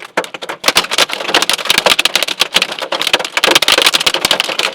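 Large hail, wind-driven and about golf-ball sized, pelting vehicles: a dense, rapid clatter of hard impacts that turns heavier and louder about half a second in.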